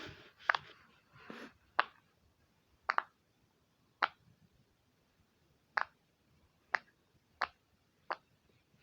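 Dinosaur toy puppet being worked by hand, giving a series of sharp clicks or snaps at irregular intervals of about a second, one of them doubled, with a soft rustle near the start.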